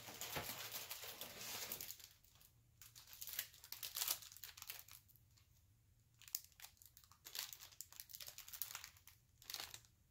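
Plastic wrappers of Hostess snack cakes crinkling as they are handled and set down, in a string of short bursts separated by brief lulls.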